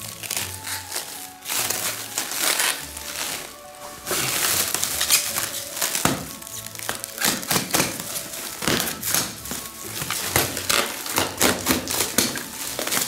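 Clear plastic stretch wrap crinkling and rustling as it is pulled and peeled off a toy truck, in dense bursts through most of the clip, over background music.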